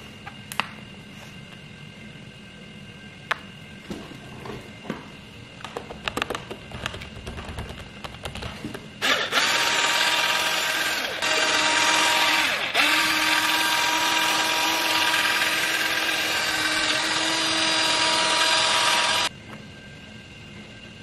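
Cordless drill spinning a polishing pad against a plastic headlight lens to polish it, after a few seconds of small handling clicks. The drill starts about nine seconds in, runs at a steady speed with two brief pauses, and stops near the end.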